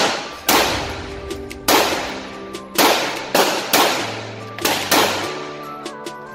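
Gunshots from a firearm, about seven shots at uneven intervals, each followed by a trailing echo.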